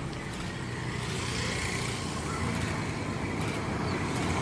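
Boeing 777-300ER on final approach: the steady rumble of its GE90 engines with a faint whine, growing slowly louder as it nears.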